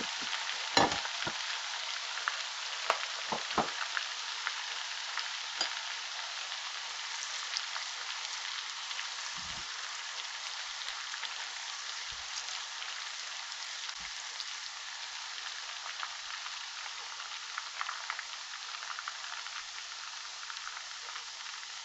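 Chopped onions frying in hot vegetable oil in a pot, a steady sizzling hiss. A few light knocks come in the first half as a spatula stirs them against the pot.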